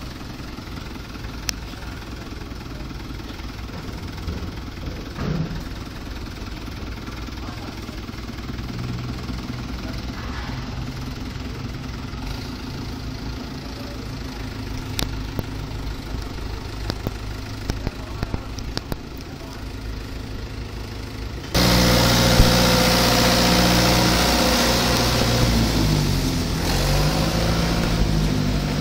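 Farm tractor's diesel engine running as the tractor drives and turns. About two-thirds of the way through it becomes suddenly much louder and stays loud.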